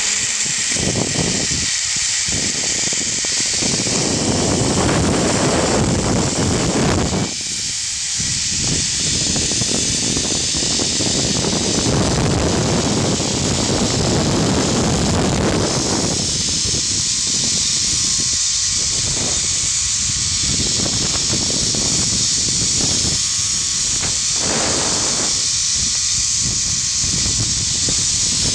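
Zip line trolley pulleys running fast along the steel cable with a steady, loud hiss and a faint wavering whine, while wind buffets the microphone in irregular gusts.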